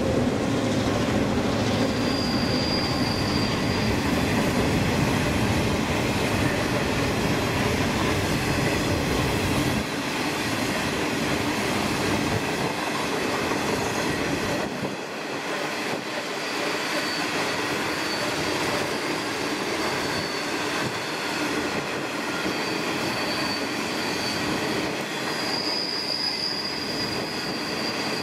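Long freight train of grain hopper wagons rolling past: a steady rumble and clatter of wheels on rail, with a high thin wheel squeal that comes in briefly about two seconds in and returns again and again near the end. The low rumble eases after about ten seconds.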